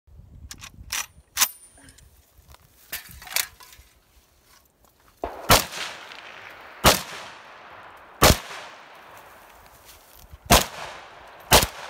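AK-47 rifle: a few sharp metallic clacks as it is handled, then five single shots fired one every second or two, each followed by a ringing echo.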